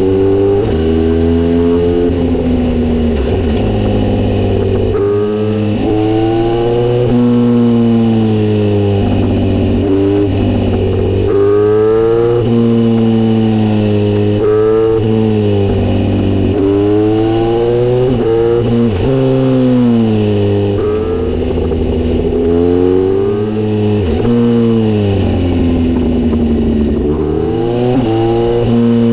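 Exhaust note of a Kawasaki Z900RS inline-four through a Misty Kintaro short-pipe muffler with a 70 mm L silencer, the engine speed rising and falling again and again.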